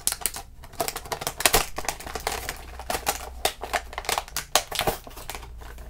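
Toy packaging being torn and pulled apart by hand without scissors, a rapid, irregular run of crackles and snaps.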